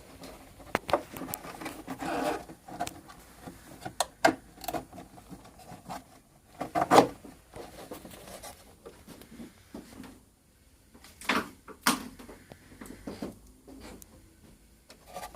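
Hands handling and fitting a sail winch and plastic hull parts: scattered small clicks, taps and rubbing, with a louder knock about seven seconds in and two more near twelve seconds.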